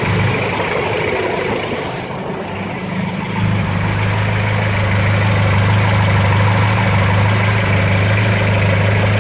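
Modified 2.0-litre Ford Pinto SOHC four-cylinder engine with twin side-draught carburettors, idling cold just after its first start in six months. It runs steadily, dipping a little in level for a moment about two seconds in.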